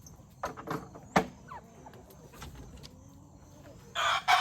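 A few light knocks and faint chicken calls, then a loud rushing hiss that starts suddenly near the end.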